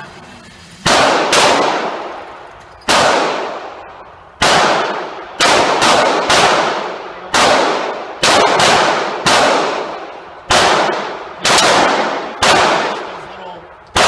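Pistol fire: about a dozen shots at an uneven pace, some in quick pairs, each followed by a long echoing decay.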